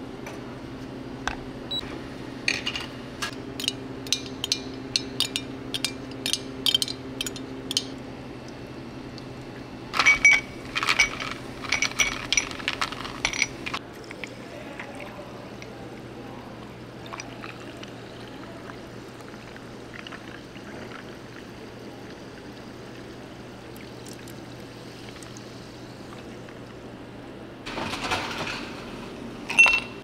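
Coffee drink being made: a run of light glass clinks, then liquid pouring with more clinking of glassware, over a steady low machine hum.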